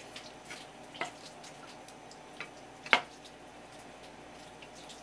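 A kitchen knife cutting bigfin reef squid on a wooden cutting board: scattered soft wet clicks and taps, with one sharp knock about three seconds in.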